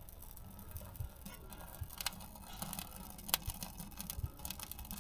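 Freshly lit kindling crackling in a wood stove's open firebox: quiet, irregular small snaps and pops, the sharpest one a little past halfway.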